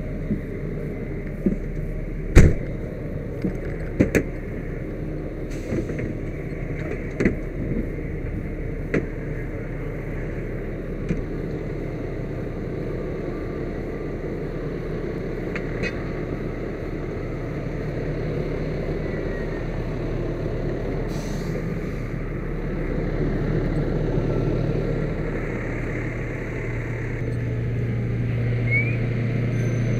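Fire engines' diesel engines running steadily, with a few sharp knocks and clunks in the first ten seconds, the loudest about two seconds in. A steady low engine hum grows stronger over the last several seconds.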